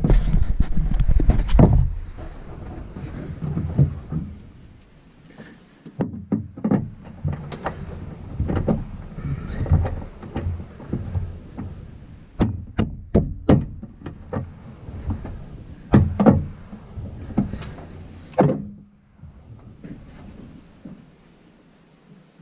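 Irregular sharp knocks and clicks of hands and hand tools working at drilled holes in a car's sheet-metal underbody, dense handling noise for the first two seconds, then scattered knocks that stop about eighteen seconds in.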